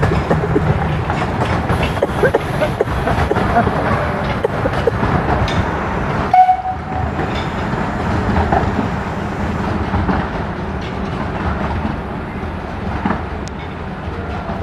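15-inch gauge trains running along the track, a steady rumble with wheels clicking over the rails.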